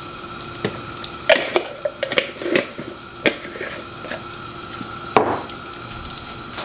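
A metal fork clicking and scraping against a jar of ghee and the rim of a nonstick wok, a quick run of light knocks, then a louder knock about five seconds in as the jar is set down on the counter. A faint steady hum runs underneath.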